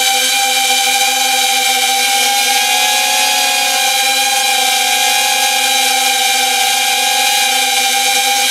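Small quadcopter's brushless motors and 3.5-inch propellers whining steadily in flight, several held tones that waver slightly in pitch.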